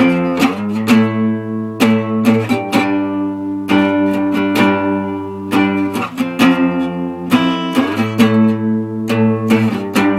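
Acoustic guitar strumming a chord progression, F, A minor and G, with the chord changing every few seconds and strums falling in a steady pattern.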